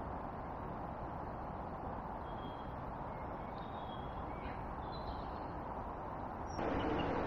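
A few faint short bird chirps over a steady outdoor background hiss. Near the end the hiss jumps suddenly louder.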